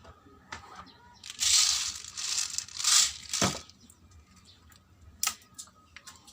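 Plastic packet of 0.25 g airsoft BBs being torn open and crinkled for about two seconds, followed by two sharp clicks.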